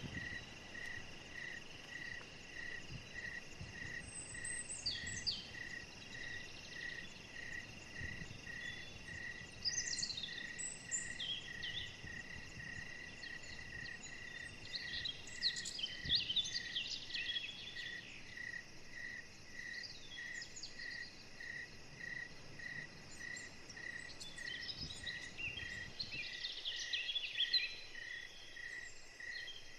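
An insect chirping steadily and evenly, about three chirps every two seconds, with birds calling now and then over it, most busily a little past the middle and again near the end.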